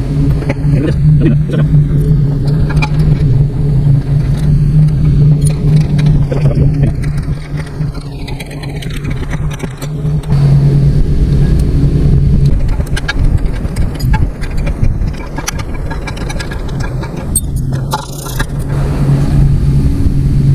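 An engine running steadily in the background, its hum dropping back in the middle and coming up again near the end, under intermittent metallic clicks and scrapes of hand tools as a mower part is worked loose.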